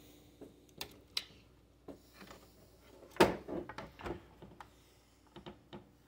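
Scattered clicks and knocks of hands working at the inside of a desktop PC, as parts are pried at while freeing the motherboard, with one louder knock about three seconds in.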